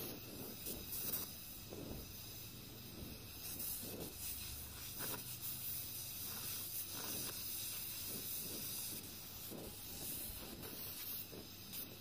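Gas brazing torch flame hissing steadily as it heats a copper pipe joint on a refrigerator compressor for silver brazing.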